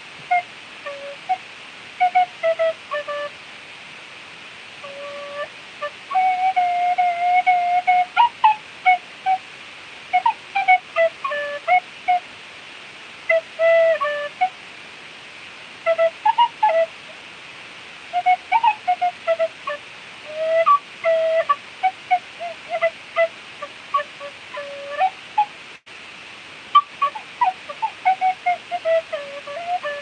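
Clarke Sweettone tin whistle playing an improvised melody, in short runs of notes with pauses between phrases, over a steady background hiss.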